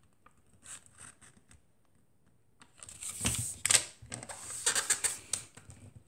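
A square of origami paper being folded by hand on a wooden table. A few faint taps in the first couple of seconds, then from about halfway, irregular rustling and scraping as the paper is slid and creased flat under the fingers.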